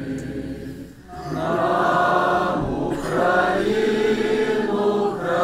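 Many voices singing a Greek Catholic liturgical chant together in held notes; the singing drops briefly about a second in, then comes back louder.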